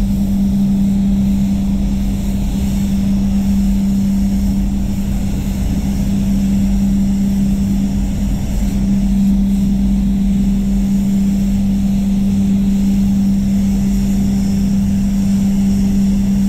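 Paint spray booth running with a steady low hum from its air fans, while a spray gun hisses out air and paint for the second coat of red base coat on a bumper.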